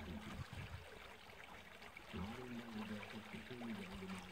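Water running out of a corrugated metal culvert into a marsh pond, a steady trickling rush. A low wavering hum comes in about two seconds in.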